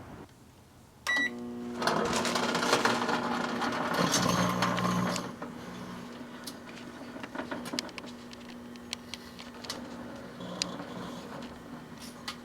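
Microwave oven beeping once as it is started, then running with a steady hum, loudest for a few seconds near the start. Irregular crackling and sharp snaps run over the hum: the solar lamp inside sparking as it is microwaved.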